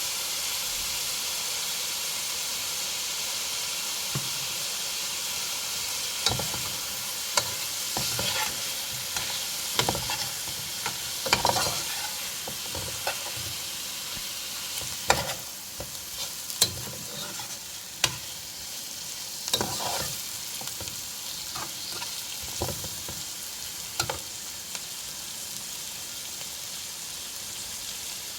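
Food sizzling as it fries in a pot, with a utensil stirring it and knocking against the pot at irregular moments in the middle stretch.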